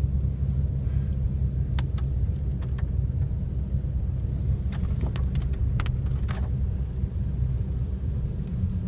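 Steady low road and engine rumble inside the cabin of a car driving on a rural road, with a few light sharp ticks scattered through it.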